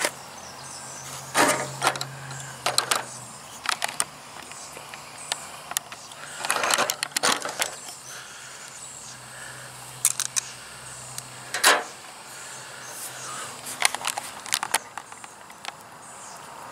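Handling noise from a handheld camera being moved and turned around: scattered knocks, clicks and rubbing. Under it runs a faint low steady hum that stops about two-thirds of the way through.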